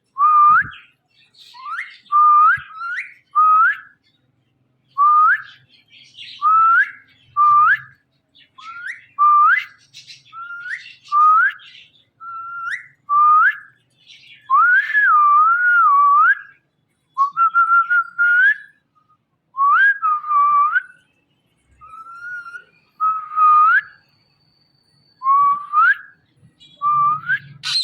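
Indian ringneck parakeet whistling a long series of short notes, about one a second, most with a rising hook and a few wavering up and down.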